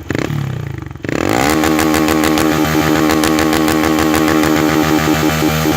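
Motorcycle engine breathing through a Boca Zero Roncar aluminium aftermarket exhaust, revved hard about a second in and then held at the rev limiter, the high steady note broken by rapid stuttering cuts.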